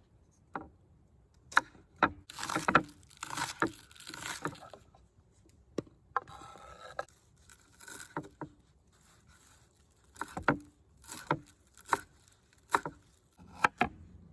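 Irregular sharp clicks and knocks with short stretches of scraping and rustling: objects being handled and set down by hand.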